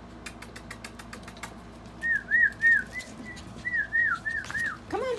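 A person whistling a series of about nine short, rising-and-falling notes to call a chihuahua puppy over. The whistles are preceded by a quick run of clicking sounds.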